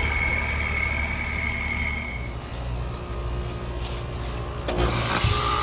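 2018 Payne heat pump outdoor unit running with a steady low hum and a thin high whine that fades out about two seconds in. Near the end a knock and a sudden change to a louder, steadier machine hum as a different unit is heard.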